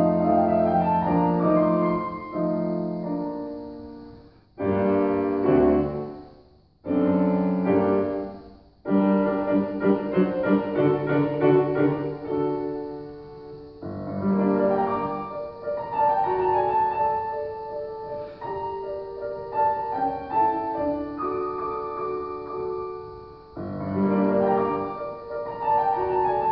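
Grand piano played solo, a classical piece in a concert hall. Loud chords are broken by three short pauses in the first nine seconds, then the playing runs on in continuous passages.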